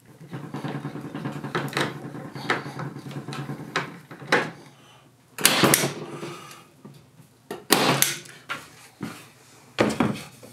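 Woodworking handling sounds on a wood-and-wire-mesh frame build: a steady hum for the first few seconds, then several sharp wooden knocks and clacks.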